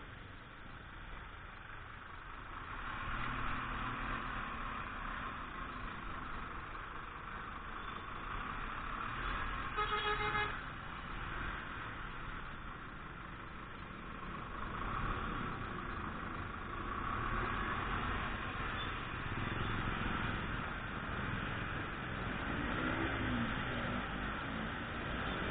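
Riding noise of a Yamaha Jupiter Z CW motorbike in city traffic: a steady hum of engine, wind and surrounding vehicles, with a horn honking once, briefly, about ten seconds in.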